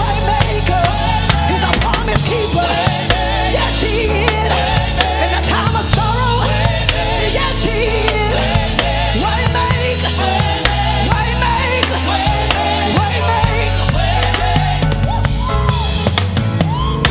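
Live gospel worship music: a band with drum kit and a steady bass line, with a voice singing over it.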